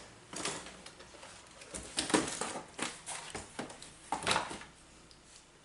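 Boxed items and packaging being handled and packed away: irregular light knocks, clicks and rustling, with a louder knock about two seconds in and another near four seconds.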